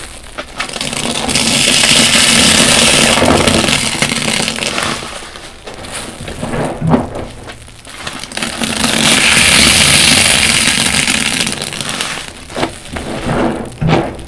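Soaked car wash sponges squeezed by hand in soapy water. There are two long swelling rushes of water and foam, each rising and falling over a few seconds, with short wet clicks and squelches between them.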